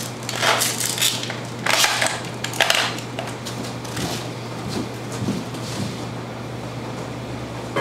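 Kitchen handling noises: a few brief clatters and scrapes in the first three seconds, over a steady low hum.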